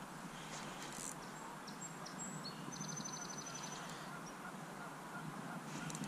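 Quiet outdoor riverbank ambience: a steady low rush with scattered short high bird calls, including a brief trill about three seconds in and more calls near the end.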